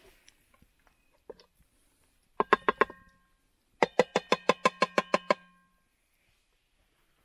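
Two quick runs of sharp taps on something that rings, about seven taps a second, each tap leaving a tone that hangs on. The second run is longer, about a second and a half.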